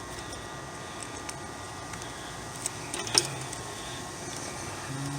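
Small handling clicks from work on the unit's capacitor and wiring, with one sharper click about three seconds in, over a steady background hiss.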